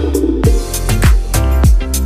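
Background music with a steady beat of deep kick-drum thumps, a little under two a second, and a bass line coming in right at the start.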